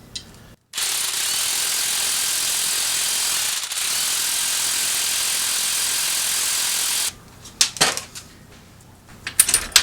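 Impact wrench running steadily for about six seconds, with a brief break midway, backing off a strut spring compressor's screws to release the coil spring's tension. It is followed near the end by a few sharp metal clicks.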